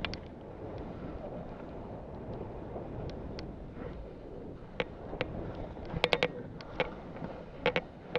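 Skis sliding and scraping over soft, rough spring snow, with wind on a helmet-mounted microphone. Sharp clicks and clacks come in the second half, in a cluster about six seconds in and again near the end.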